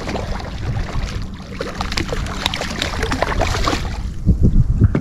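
Redfish thrashing and splashing at the water's surface beside the boat as it is brought in, in a string of short irregular splashes. Steady wind rumble on the microphone underneath.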